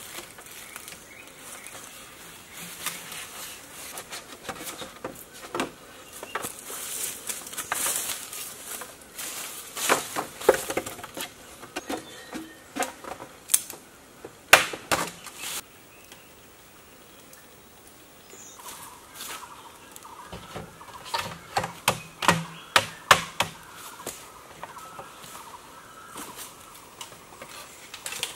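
Hollow bamboo poles knocking and clattering against each other as they are handled and fitted into a bamboo frame. The knocks come irregularly, with busier runs a little past the middle and again about three-quarters through.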